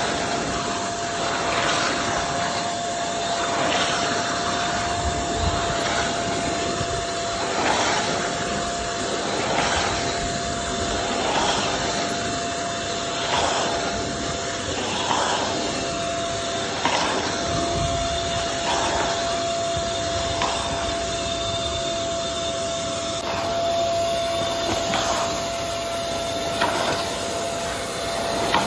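Carpet extractor's suction motor running with a steady whine while its wand draws water out of a shag rug. The suction noise swells about every two seconds with each stroke of the wand.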